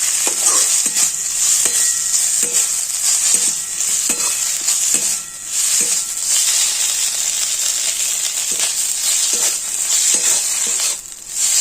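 Crushed ginger sizzling in hot ghee in a kadhai, stirred, with the stirring utensil knocking against the pan a little more often than once a second. The sizzle dips briefly twice, near the middle and near the end.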